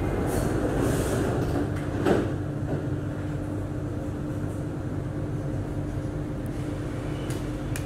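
Circle Line MRT train's sliding passenger doors closing, shutting with a thud about two seconds in. The carriage then hums steadily while it stands.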